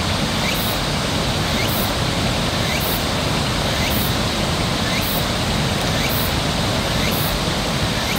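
Steady outdoor ambience: an even rushing noise, with a faint short rising chirp repeating about once a second.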